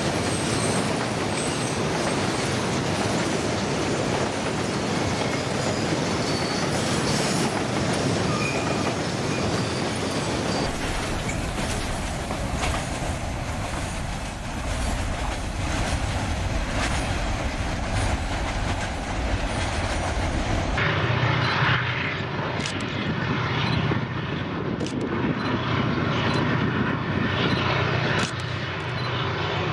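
Freight cars (tank cars and boxcars) rolling past close by, steel wheels running on the rails. After a sudden cut about 21 s in, diesel locomotives are heard running at a distance, a steadier low engine hum.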